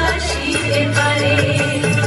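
Song playing as dance music: a wavering melody line over sustained low bass notes.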